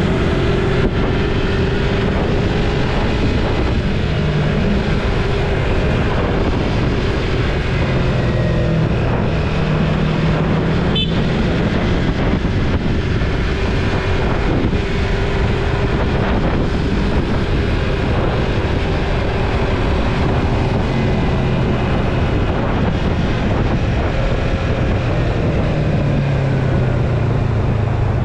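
Yamaha MT-03 motorcycle engine running at a steady cruising pitch under heavy wind rush on the microphone, the engine note dipping slightly near the end.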